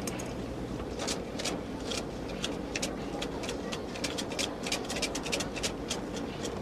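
Bamboo fortune sticks rattling in their cup as they are shaken: a quick, irregular run of light clicks and clatters.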